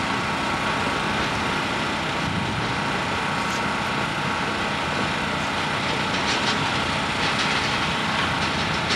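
Electric starter motor cranking a Yanmar marine diesel engine, which turns over without firing: the engine is not seized, only too stiff to turn by hand.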